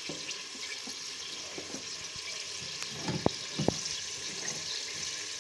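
Sliced onions sizzling in hot oil in an open pressure cooker, a steady hiss, with two sharp clicks a little past three seconds in.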